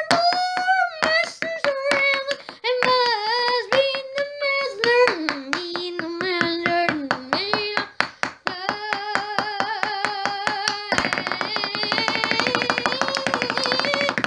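A single voice singing a wordless tune in long, gliding held notes over a fast, even clicking beat like hand claps. About eleven seconds in, a denser, noisy wash thickens the accompaniment.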